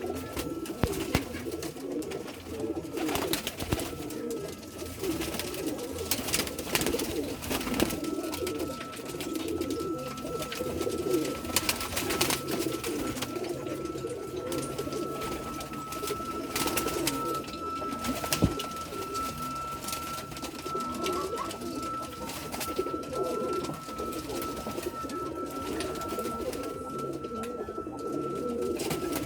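Domestic pigeons cooing, many calls overlapping without a break. There are occasional sharp knocks and a faint steady high tone.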